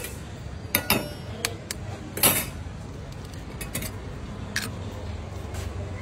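Eggs tapped and cracked against the rim of a stainless steel bowl, with a fork clinking in the bowl: a string of sharp taps and clinks, the loudest a little over two seconds in.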